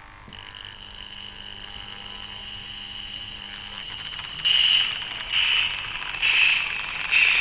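A Lionel C&O model steam locomotive powering up and pulling away on three-rail track. A steady high motor whine and a low hum build as power comes up, then rhythmic hissing bursts about once a second begin as the engine gets moving.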